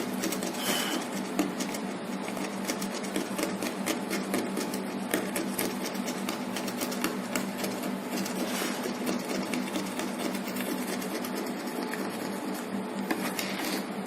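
Small handheld rotary tool running steadily with a fast rattling buzz as it cuts through copper traces on an LED street-light circuit board.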